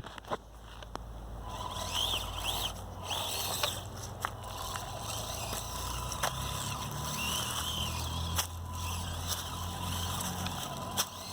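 Axial SCX24 Deadbolt micro crawler's brushed electric motor and gears whining, rising and falling in pitch with the throttle over a steady low hum, with scattered clicks.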